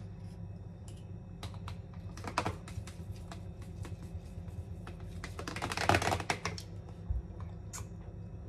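Wooden straw stirring and knocking inside a plastic blender cup of thick berry protein shake: a scatter of light clicks, with a louder rattling, scraping stretch about six seconds in.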